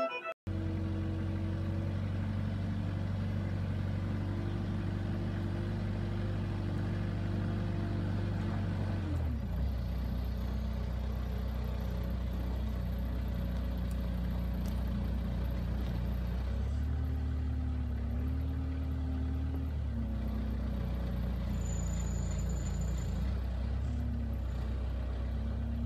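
Rough-terrain forklift engine running steadily. It drops from higher revs to a lower idle about nine seconds in, revs up briefly a little later, then settles back.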